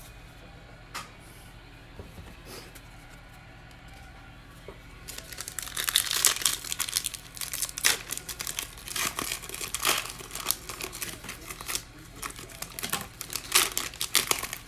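A trading-card pack wrapper being torn open and crinkled by hand. The crackling starts about five seconds in, after a quiet stretch with a few faint clicks.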